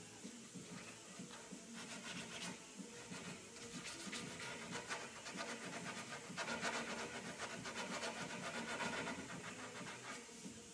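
Sandpaper held by hand rubbing along the tip of a wooden propeller blade: faint, quick back-and-forth rasping strokes, busiest in the middle stretch.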